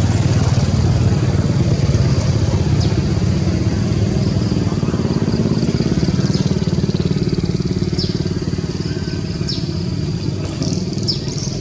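A loud, steady low engine rumble, with brief high falling squeaks every second or two over it.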